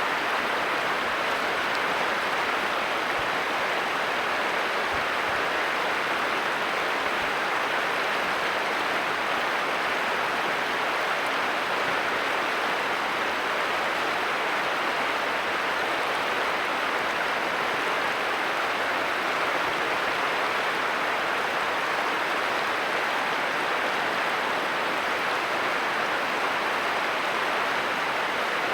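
Running water of a stream, rushing steadily.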